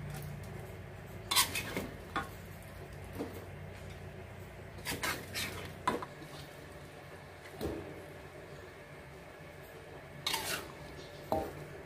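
A metal spatula scraping and clattering against a steel wok while saucy chicken feet are scooped out, in scattered short clatters a second or a few apart.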